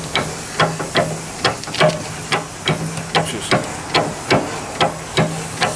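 Large hand-operated boiler feed pump being worked, with sharp clacks about three times a second as it draws water up a hose out of a bucket. A low hum comes and goes behind the strokes.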